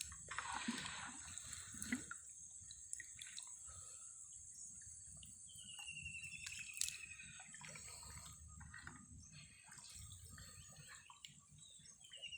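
Water dripping and splashing as a gill net is hauled out of a canal, with small scattered clicks, over a steady high-pitched hiss; a short descending whistle sounds about six seconds in.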